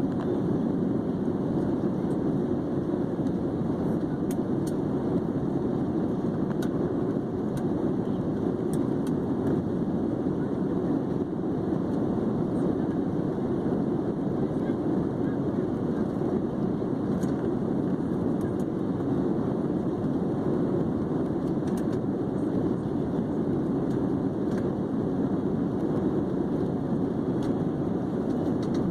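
Steady, unchanging noise of an airliner's jet engines and rushing air, heard from inside the passenger cabin in flight.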